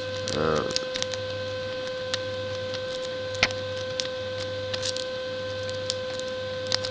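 Small sharp clicks of homemade picks working the pins of a Lockwood 110/40 padlock, scattered and irregular, with one louder click about three and a half seconds in, over a steady electrical hum.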